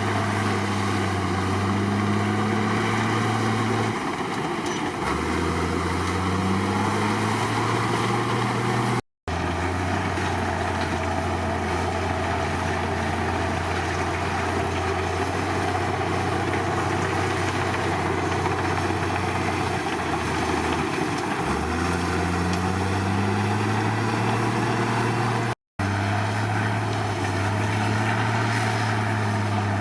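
Komatsu D53 crawler bulldozer's diesel engine running and working. Twice its pitch sags and then climbs back as the throttle and load change. The sound cuts out for an instant twice.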